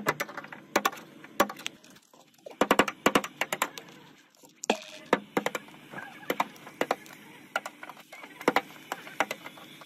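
Screwdriver and hammer chipping flaking paint and rusted body filler off a car door panel. A string of sharp, irregular cracks and clicks, some in quick clusters.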